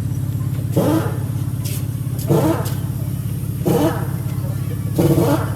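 A machine running with a steady low hum, with a louder surge of noise coming back regularly about every one and a half seconds.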